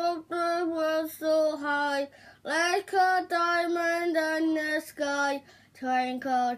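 A young girl singing unaccompanied, in short phrases of held notes with brief breaths between them.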